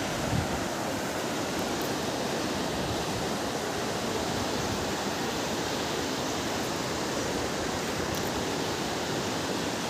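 Fast, rocky mountain river rushing over rapids and boulders: a steady, even rush of whitewater.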